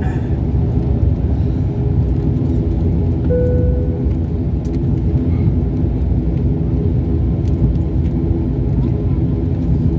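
Airliner cabin noise on the ground after landing: a steady, loud low rumble of the jet engines and the aircraft rolling, with a brief tone about three seconds in.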